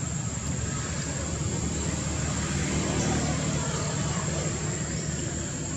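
Steady low engine rumble of a motor vehicle, swelling slightly about halfway through, over a constant high-pitched insect drone.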